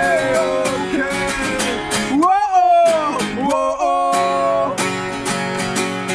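Two acoustic guitars strummed together while a male voice sings long held notes.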